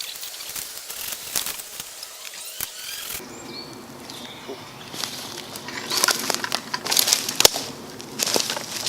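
Dry sticks and leaf litter crunching and snapping as deadwood is gathered for firewood, with a denser run of sharp cracks from about six seconds in.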